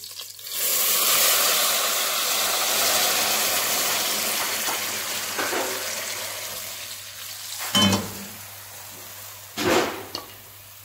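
Jaggery syrup poured into hot oil and fried fennel seeds, sizzling and bubbling as it hits. The sizzle starts suddenly and fades slowly over several seconds. Two dull thuds come about two seconds apart near the end.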